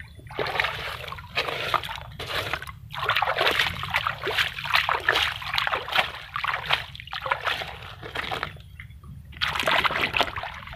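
Shallow stream water splashed and sloshed by a hand in a run of irregular bursts, with a pause about two thirds of the way through and one more burst near the end.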